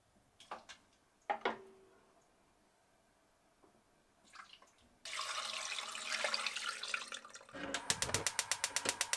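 A few knocks and a short ringing clink of enamelware, then liquid pouring steadily for about two and a half seconds as leftover oden broth is tipped from an enamel tray into a pot. Near the end comes a fast, even run of clicks, about nine a second, like a gas hob's igniter.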